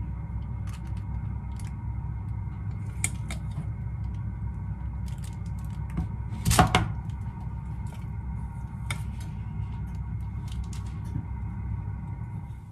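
Choux pastry dough being scraped out of a stainless-steel pot into a piping bag: scattered soft clicks and scrapes of metal, with one sharper knock about six and a half seconds in, over a steady low hum.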